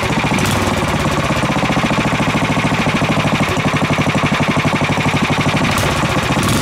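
Small single-cylinder four-stroke go-kart engine running steadily just after being pull-started, with a fast, even beat of exhaust pulses from its small muffler.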